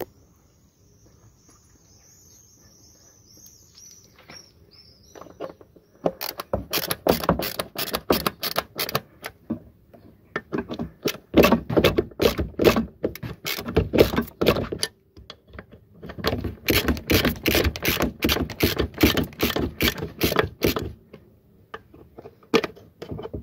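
Hand ratchet clicking in fast runs, tightening the hose clamp on the intake air boot over the throttle body. The clicking starts about six seconds in, breaks off briefly near the middle, and stops shortly before the end.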